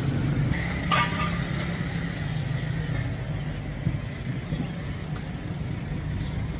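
Steady low rumble of street traffic, with a single metallic clink about a second in.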